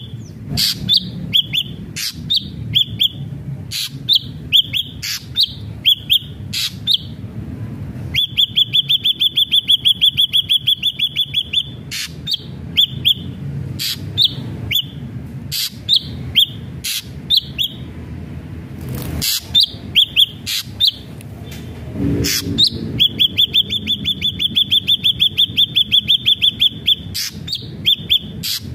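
Ashy drongo singing loudly: two long, fast trills of rapidly repeated high notes, with short upswept whistled notes and sharp clicks between them.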